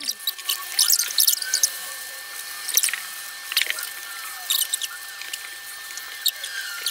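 Several pens scratching and squeaking on paper in short, irregular strokes as people draw, over a faint steady tone.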